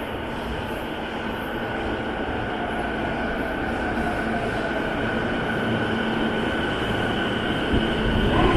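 Toei 10-300 series subway train pulling into an underground platform. Its running noise grows steadily louder as it arrives, with a motor whine that falls in pitch as it slows.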